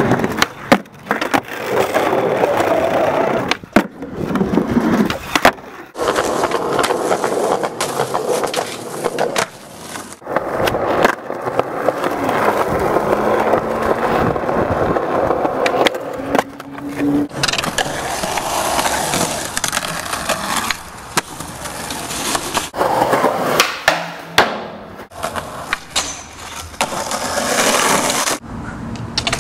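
Skateboard wheels rolling over pavement and wooden boards, broken by sharp clacks of tail pops, landings and board impacts. The sound cuts off and restarts abruptly many times.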